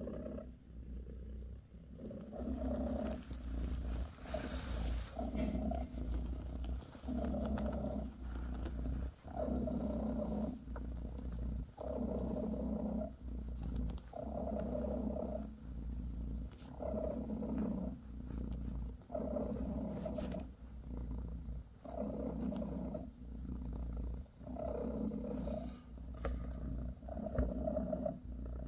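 British Shorthair mother cat purring steadily while nursing her newborn kittens, the purr swelling and fading with each breath in an even rhythm, a little softer for the first couple of seconds.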